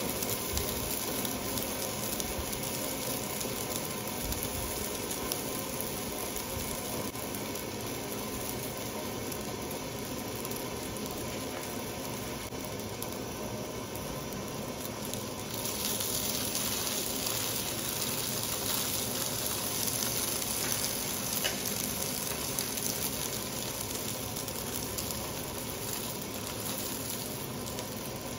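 Sausages frying in oil in a non-stick frying pan: a steady sizzle that grows louder and brighter about halfway through.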